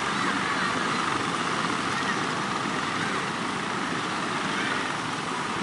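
Heavy surf churning steadily, with a small outrigger fishing boat's engine running underneath, and a few short, faint high chirps over it.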